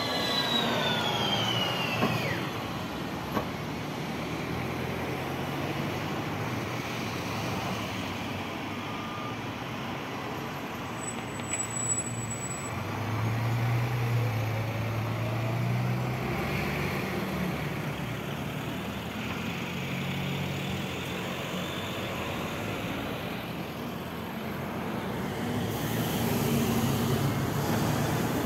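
MAN natural-gas city buses passing close and pulling away, their engines running with a steady low drone that swells about halfway through and again near the end. A high whine falls steeply in pitch as a bus goes by in the first couple of seconds.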